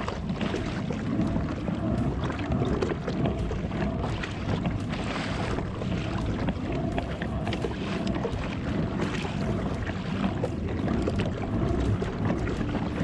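Sea water lapping and splashing against a moving kayak's plastic hull, with wind rumbling on the microphone.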